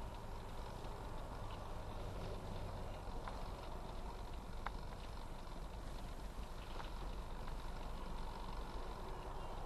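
Steady cabin noise of a car moving slowly in traffic, recorded by a dash cam: a low engine and road rumble with a few faint, scattered clicks.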